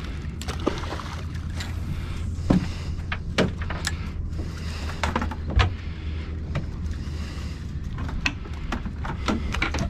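A boat's motor running with a steady low hum, under scattered knocks and clatter on the deck. Three sharper knocks stand out about two and a half, three and a half and five and a half seconds in.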